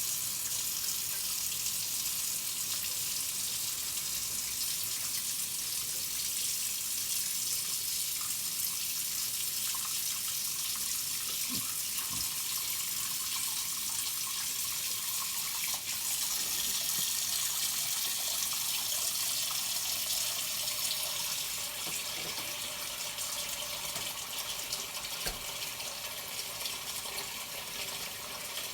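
Kitchen tap running into a sink while yam is washed under it, a steady rush of water with a few light knocks of handling; it gets a little softer after about 21 seconds.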